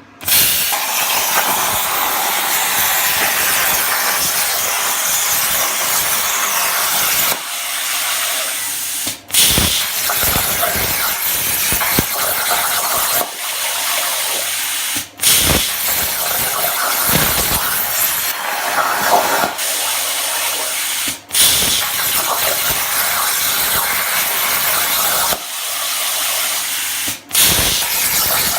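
Plasma cutter on a CNC table cutting steel: a loud, steady hissing arc that starts suddenly. Four times, about every six seconds, it breaks off for a moment and strikes again.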